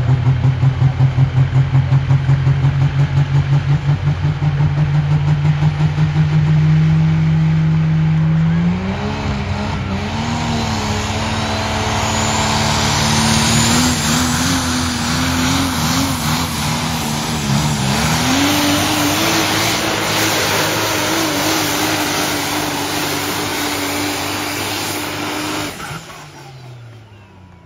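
Modified diesel pickup engine at full throttle pulling a sled on a dirt track. It holds high, steady revs with a pulsing beat for about eight seconds, then its pitch climbs in steps and wavers, rising again partway through. The sound drops away sharply near the end.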